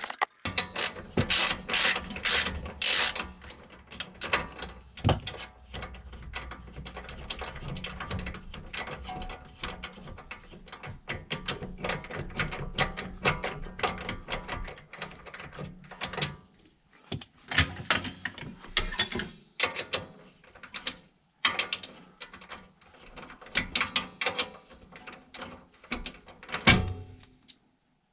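Ratchet wrench clicking and metal tools knocking on the rear suspension bolts, in irregular runs of clicks with louder clusters near the start and again later on.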